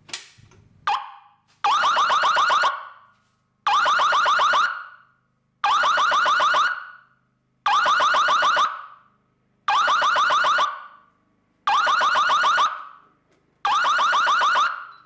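A manual fire alarm pull station is pulled with a sharp click, and the fire alarm system's sounder goes off. It sounds a repeating pattern of about one second on and one second off, seven blasts in all, each echoing briefly in the garage.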